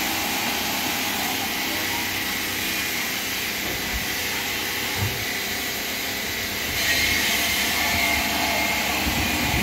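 Steady drone of machinery with a strong hiss, with a single knock about five seconds in and growing louder and brighter from about seven seconds in.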